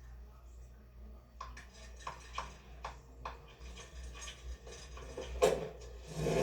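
Scattered light clicks and taps, a few each second, with one louder sharp knock about five and a half seconds in: film sound-effect foley.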